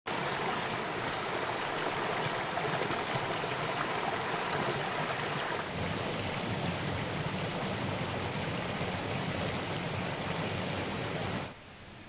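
Water of a small rocky forest stream babbling and splashing steadily as it spills in a little cascade over boulders. The sound drops sharply to a faint hiss near the end.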